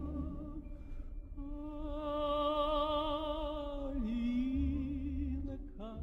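Operatic-style singing: one voice holding long notes with a wide vibrato, breaking off briefly about a second in, then dipping and rising in pitch about four seconds in.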